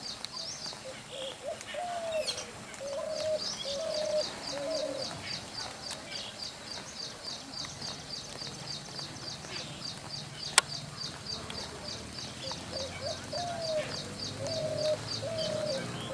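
Spotted dove cooing: two phrases of four or five low, soft coos, one near the start and one near the end. A high-pitched chirp from another bird repeats at about three a second through the middle, and there is one sharp click about two-thirds of the way through.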